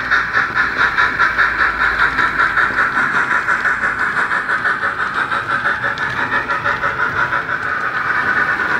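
Howes DCC sound decoder in a Hornby A4 model locomotive, playing steam exhaust chuffs through a small megabass speaker in the tender: an even beat of about four chuffs a second as the engine runs, growing a little louder near the end.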